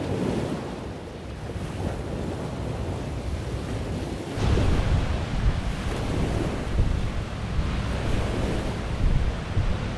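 Wind rumbling on the microphone over the wash of surf breaking on a sandy beach; the rumble grows louder about four seconds in.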